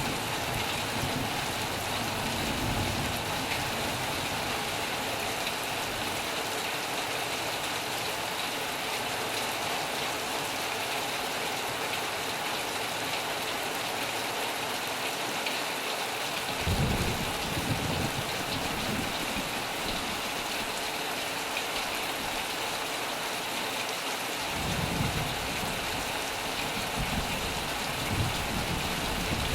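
Heavy rain falling steadily on a metal roof. Low thunder rumbles come in about two-thirds of the way through and again near the end.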